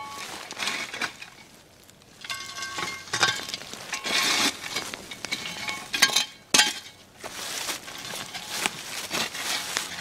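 A metal shovel scraping through ash and hot coals and tipping coals onto a cast-iron Dutch oven lid: repeated scrapes with clinking, briefly ringing knocks, starting about two seconds in.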